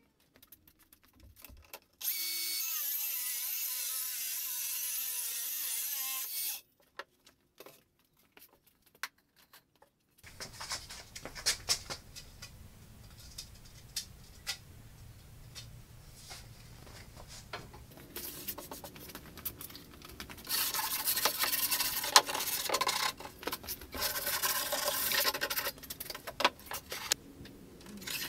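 A track saw runs steadily through a wooden kitchen door panel for about four and a half seconds, then stops abruptly. After it come scattered knocks, clicks and rubbing as the wooden panel and frame pieces are handled, busiest in the last third.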